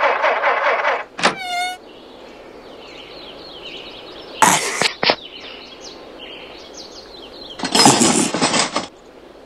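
Cartoon sound effects around a car: car noise at first, a short wavering squeal just after a second in, then two sharp knocks around the middle and a burst of noise near the end, with faint chirps in the quieter stretches.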